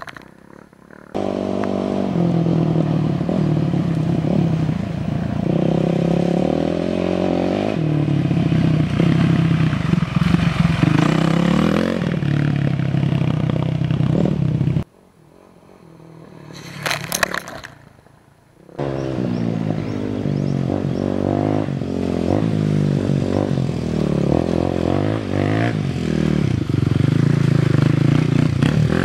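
Dirt-bike engines running and revving on off-road trails, the pitch rising and falling as the riders work the throttle. About halfway through the sound drops away for a few seconds, with a brief burst, then the revving picks up again.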